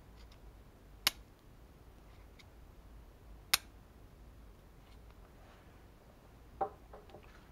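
Two sharp metallic clicks about two and a half seconds apart from a metal hand tool being handled. Near the end comes a duller tap followed by a few quick, lighter clicks.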